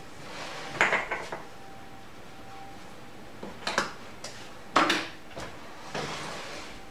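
Clinks and knocks of kitchen utensils and containers handled over a mixing bowl, in a few short irregular clusters, the loudest about a second in and again near five seconds.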